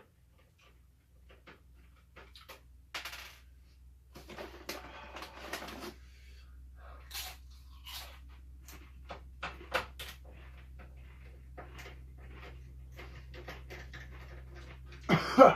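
Scattered clicks, taps and small knocks of an Xbox 360 console's plastic casing and screws being handled while it is taken apart, with a couple of longer rustling or scraping stretches.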